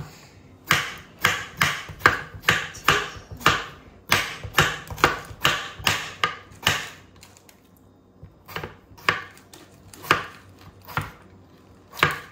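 Chef's knife slicing a cucumber on a wooden cutting board: even knocks of the blade against the board, about two a second, with a brief pause partway through before the slicing resumes.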